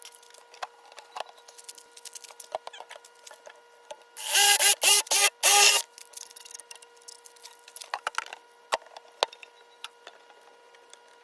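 Pipe being cut to length, with a loud, harsh, pitched burst of about four short cutting strokes about four seconds in. Scattered clicks and knocks of the pipe being handled come before and after, over a faint steady hum.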